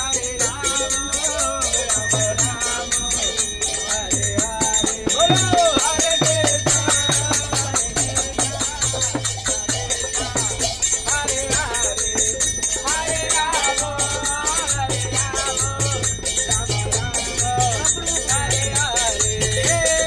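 Kirtan: voices chanting together to the steady ringing of karatalas, small hand cymbals, over a low drum beat about twice a second.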